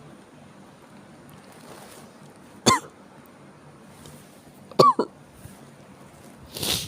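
A person with chills and a cough coughing in single sharp coughs, two of them about two seconds apart, then a longer, breathier cough near the end.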